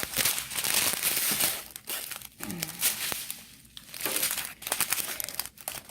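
Small plastic bags of diamond-painting drills crinkling as they are handled, in two spells of dense crackling with a quieter stretch between them.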